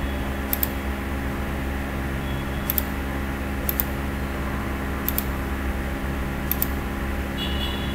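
Computer mouse clicking about five times, each a quick press-and-release pair, a second or two apart, while sketching a line and a circle in CAD software. Under it runs a steady hum of a computer fan.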